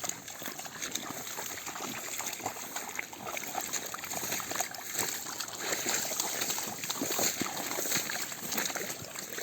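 Irregular splashing and sloshing of water, as from wading through shallow water, going on steadily.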